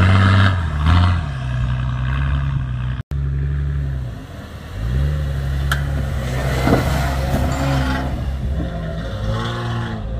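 Four-wheel-drive vehicle's engine revving and easing off as it drives an off-road track. The sound drops out for an instant about three seconds in, then the engine picks up again, with its pitch rising and falling near the end.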